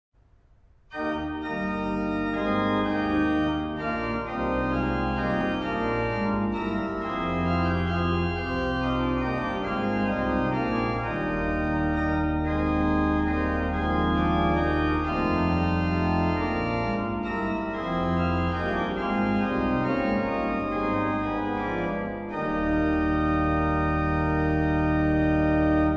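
Organ music playing slow, sustained chords. It starts about a second in and ends on a long held chord.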